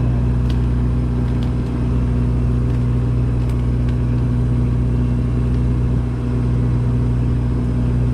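Fishing boat's engine running steadily, a low even hum, with a few faint clicks over it.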